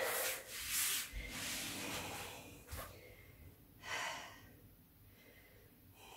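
A woman breathing heavily after strenuous exercise: noisy breaths at the start and one short, sharp breath about four seconds in.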